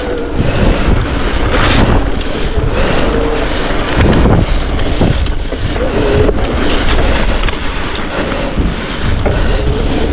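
Mountain bike riding a wet, puddled trail: tyres rumbling and hissing over the ground with knocks and rattles from the bike, and wind buffeting the camera microphone. The noise surges unevenly, with several sharp knocks.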